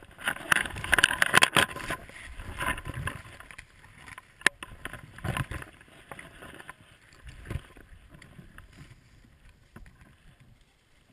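Dry grass and briars rustling and scraping against a hunter's clothing as he pushes through the brush on foot. The sound is loudest in the first few seconds and fades as he slows. One sharp crack comes about four and a half seconds in.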